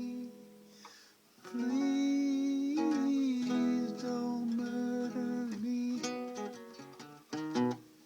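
Acoustic guitar strummed, playing the song's closing chords, with a short lull about a second in and a few quick strums near the end.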